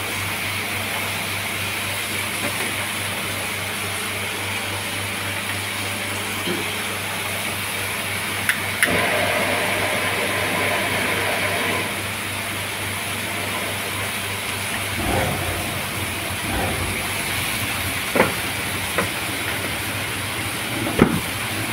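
Beef ribs sizzling on a hot grill pan: a steady hiss over a low hum, with a few sharp clicks and knocks in the second half.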